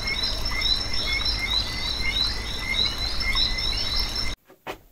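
A chorus of frogs chirping rapidly over a steady high insect drone and a low rumble. It cuts off abruptly near the end, followed by two faint clicks.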